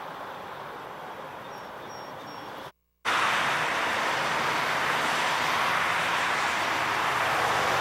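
Steady rushing background noise that cuts out completely for a moment almost three seconds in and comes back louder.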